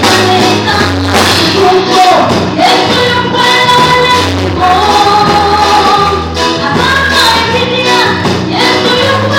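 A woman singing a gospel song into a microphone, amplified over loudspeakers, backed by a live band with drum kit and keyboard.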